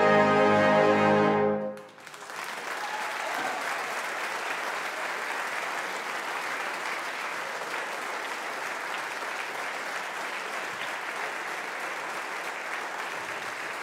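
Brass band with a horn soloist holding a loud final chord that cuts off about a second and a half in, followed by steady audience applause.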